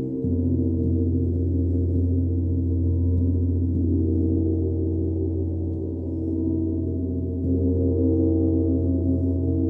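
A large hanging gong played with a soft mallet rings on with a deep hum and many overtones. It swells with a fresh stroke just after the start and again about three quarters of the way through.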